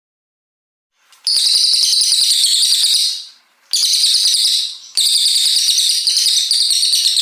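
Brown cililin singing three long, rapid, high-pitched bursts, starting about a second in, with short breaks between them.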